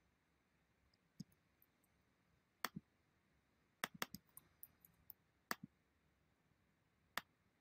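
Faint, scattered clicks of a computer mouse and keyboard keys while text is selected, copied and pasted between windows, with a quick run of clicks about halfway through.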